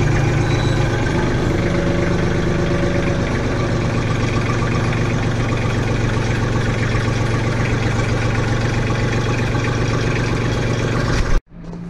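Orange compact tractor's engine running steadily at an even speed, close by, as it holds a lifted engine on its loader; the sound cuts off suddenly near the end.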